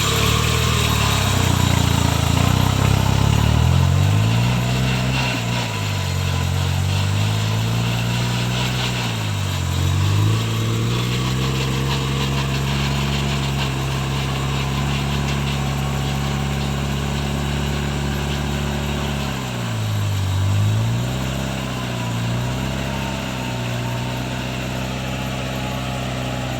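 Off-road vehicle's engine running steadily under load, its pitch dipping and recovering three times as the load comes on and eases off.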